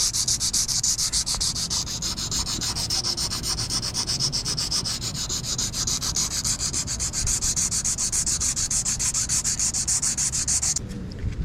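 Sanding down cured putty filler on a fiberglass boat hull: a steady, high hiss made of rapid, even strokes that stops abruptly near the end.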